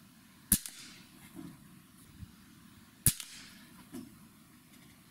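Black Bunker BM8 .22 break-barrel air rifle firing twice, about two and a half seconds apart: two sharp reports, each with a short fading tail.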